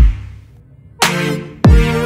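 Electronic music: deep booming bass notes that drop sharply in pitch, one right at the start and another near the end, with a chord stab coming in about a second in.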